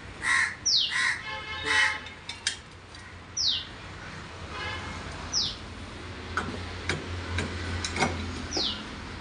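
Crows cawing three times in quick succession near the start, while another bird repeats a short falling whistle every couple of seconds. A few sharp metal clinks come in the second half, as parts are handled on the tractor's transmission.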